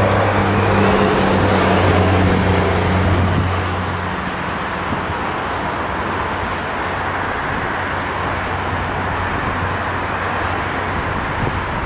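Boeing 737's twin jet engines running steadily, a loud rushing roar with a low hum underneath that fades about four seconds in.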